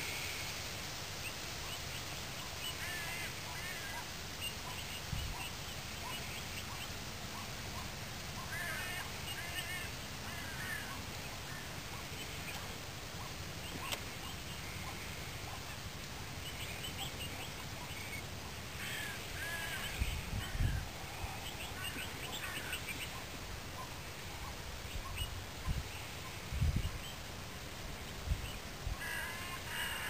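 Bird calls: small clusters of short, chirping notes every several seconds over a steady outdoor hiss, with a few brief low thumps around the middle and later on.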